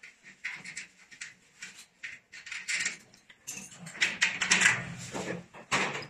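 Handling noise from fitting a steel shelf rack by hand: irregular scrapes, rustles and light knocks of the sheet-steel top panel against the slotted uprights, busiest in the second half.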